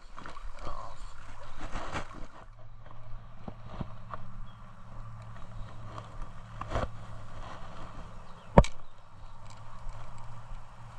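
Steady rush of creek water on a camera's built-in microphone, under a low steady hum, with scattered knocks and bumps; the sharpest knock comes about two-thirds of the way through.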